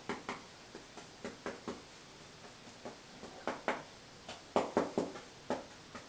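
A 2-inch paint brush tapping and working oil paint on a plastic palette, mixing brown with yellow and white: a series of irregular soft taps and clicks, sparser in the middle and coming in quick clusters in the second half.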